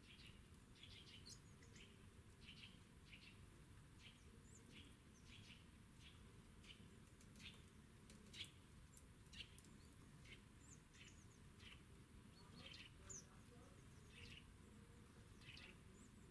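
Small songbirds chirping faintly: a steady series of short, high chirps, about two a second, with a few louder ones around the middle, over a faint low background noise.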